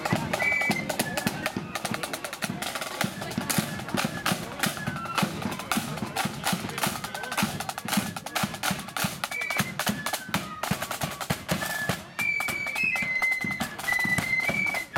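Blood-and-thunder marching flute band playing: rapid side-drum strokes and rolls over bass drum beats, with the flutes' melody on top. In the last few seconds the flute tune stands out more clearly over the drums.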